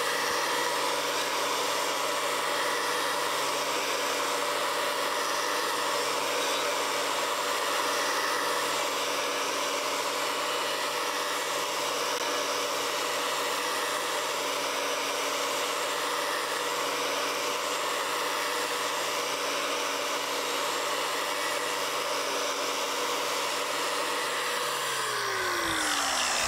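Angle grinder turned down on its speed variator to about 7,000 RPM, a unitized finishing disc held lightly against a steel bar: a steady motor whine with the hiss of the disc on the metal, the machine note light because it is not being pushed. Near the end it is switched off and the whine falls as the disc spins down.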